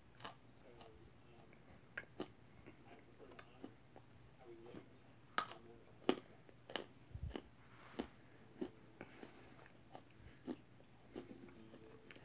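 A person biting and chewing sticks of Cra-Z-Art chalk, with sharp irregular crunches about every half second to a second.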